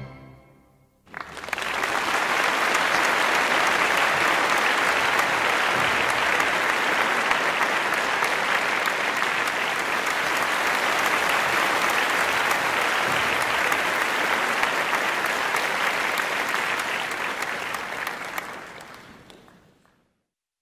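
Audience applauding. It starts suddenly about a second in, as the last note of the orchestral ballet music dies away, holds steady, then fades out near the end.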